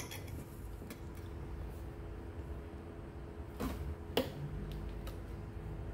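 Quiet room tone with a steady low hum, broken by two faint short knocks about three and a half and four seconds in.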